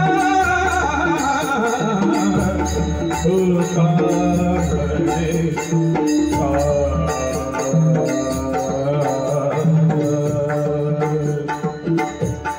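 Marathi devotional bhajan: a singing voice over a pakhawaj-style drum and small brass hand cymbals (tal) keeping a steady beat.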